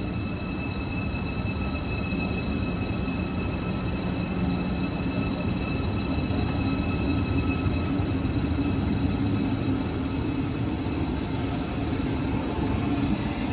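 ICE high-speed train pulling away: a steady rumble that grows slowly louder, with a low hum that rises in pitch. A high, steady whine fades out about eight seconds in.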